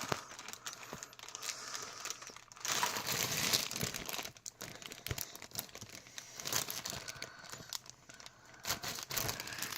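Plastic cheese packaging crinkling and rustling as a cheese slice is taken out and unwrapped, in irregular spells, loudest about three seconds in.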